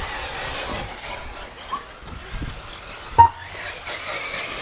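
1:8-scale electric RC buggies racing on a dirt track, their motors whining and tyres hissing over the dirt, with a sharp click carrying a short high tone about three seconds in.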